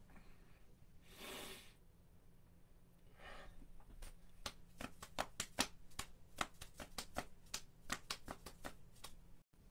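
Hands moving in front of the body: two brief rubbing swishes, then a run of light, irregular taps, about two a second.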